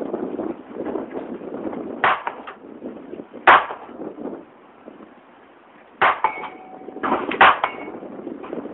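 Shots from a GSG 1911 .22 LR pistol, about five sharp cracks at uneven intervals, the loudest about three and a half seconds in. After the shot about six seconds in, a steady ringing tone carries on for about a second: a steel target plate ringing from a hit.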